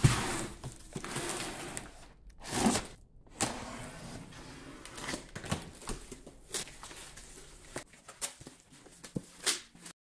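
Cardboard shipping box being opened and unpacked: cardboard flaps and packing rustling, scraping and tearing in a string of noisy bursts, with a few sharp knocks and clicks.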